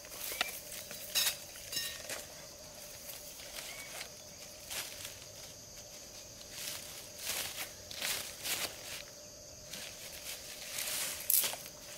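Rustling and scraping of dry grass, leaves and a thin stick being handled and bent close by, in short irregular bursts, over a steady high-pitched background drone.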